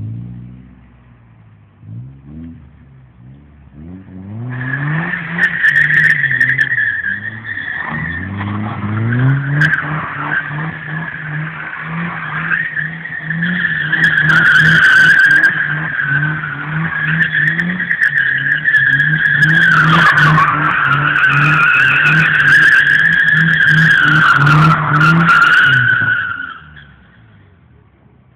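Nissan 200SX drifting: the engine revs hard, its note rising and falling, while the tyres squeal continuously for about twenty seconds. The squeal starts a few seconds in and stops near the end, leaving only the engine.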